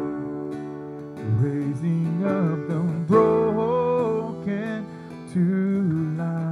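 Live worship band music: acoustic guitar strumming under keyboard, with a violin playing a sliding, wavering melody line.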